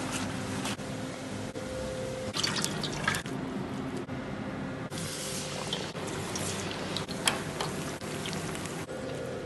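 Gloved hands squishing and mixing a wet batter of grated carrot and chopped herbs, giving scattered wet clicks and squelches over a steady kitchen hum.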